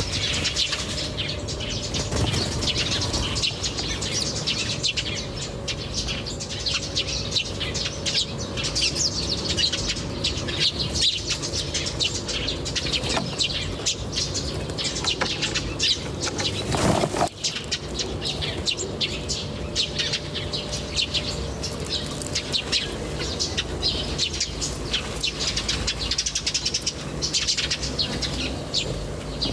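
Many small birds chirping continuously, their short high calls overlapping without pause, with a brief louder rustle about halfway through.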